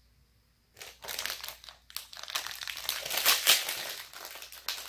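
Thin plastic toy wrapper crinkling and rustling as a small blind-box package is opened, starting after a brief silence and loudest about three and a half seconds in.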